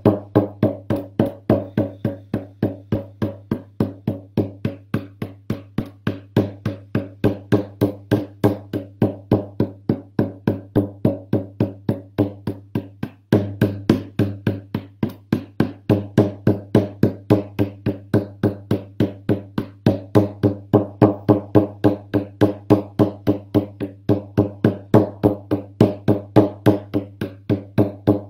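Hand drum, most likely a frame drum, struck with a padded beater in a steady, even beat of about three strokes a second, each stroke a deep ringing boom. The beat breaks off briefly about halfway through, then carries on.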